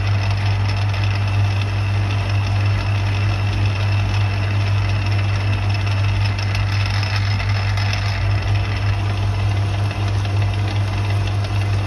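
Metal lathe running under power with its change gears and lead screw engaged for screwcutting. A 60-degree high-speed-steel tool takes a single-point threading pass, cutting a 26 threads-per-inch thread on a pin turning between centres. The lathe gives a steady hum.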